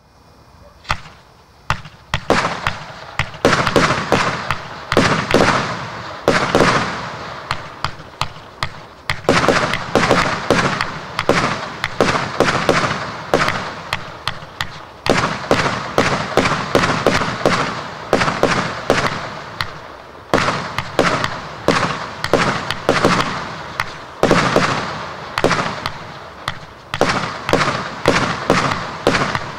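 A 100-shot fireworks cake firing. Two lone shots come about a second in, then it fires shot after shot in a steady, rapid volley of launches and bursting bangs.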